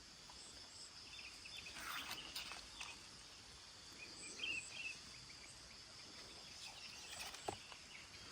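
Faint outdoor ambience: a steady high insect drone, with a few short bird chirps and brief soft rustles.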